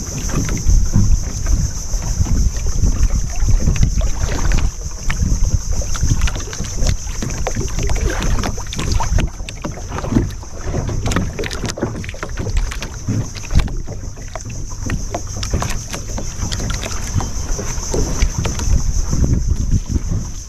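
A fibreglass fishing boat running through waves: a heavy low rumble of wind and water on the microphone, broken by irregular knocks and splashes, over a steady high hiss.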